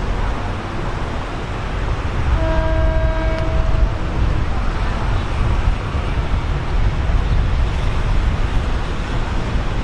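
Horn of an approaching Hitachi diesel-electric locomotive (SRT 4507), sounding one blast of about a second, about two and a half seconds in. It sounds over a steady low rumble.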